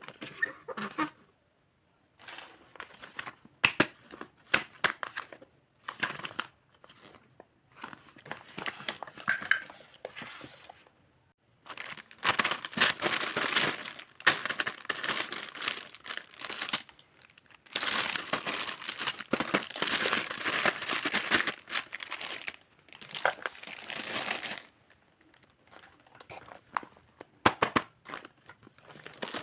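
Packaging being unwrapped by hand, crinkling and tearing in irregular bouts with brief pauses, the longest and loudest stretches past the middle.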